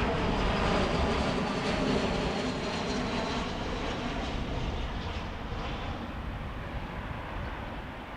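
Airliner jet engines passing by and fading away, their pitch sliding slightly lower as the aircraft moves off.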